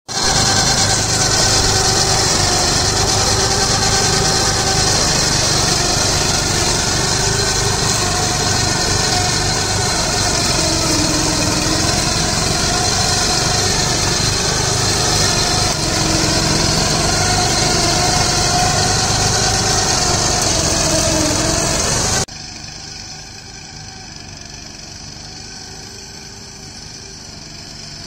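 Small petrol engines of a farm quad bike and its rotary slasher running while cutting weeds, a loud steady drone whose pitch wavers slightly as the load changes. About 22 seconds in, the sound drops suddenly to a quieter, steadier engine drone.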